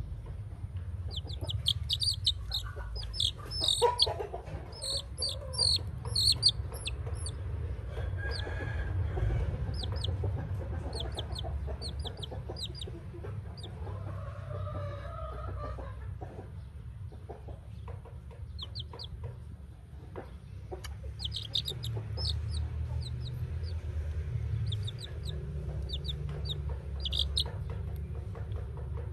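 Baby chick peeping: runs of short, high cheeps in quick succession, clustered in two stretches with a quieter gap between them, over a steady low rumble.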